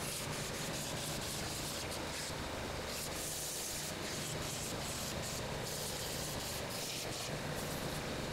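Benchtop belt sander running steadily, its abrasive belt sanding the edge of a small wooden piece pressed against it: an even sanding hiss over a low motor hum.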